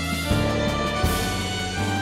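Instrumental music with held chords that change twice.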